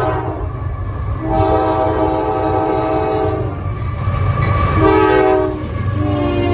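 CSX diesel freight locomotive's air horn sounding a long blast, a short one, then another long one, the closing part of the grade-crossing signal. The locomotive's engine and wheels keep up a steady low rumble underneath.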